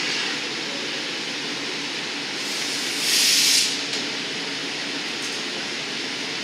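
Steady rushing noise of a glass studio's gas-fired glory holes and furnace, with a loud hiss lasting about a second at the glassblower's bench about halfway through.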